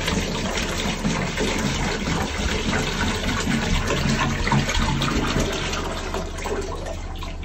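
Bilge water running through a hose into a plastic jerry can and filling it, a steady rush of liquid with a low hum underneath.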